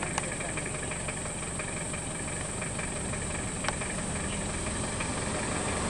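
A vehicle engine idling steadily, with a couple of faint clicks.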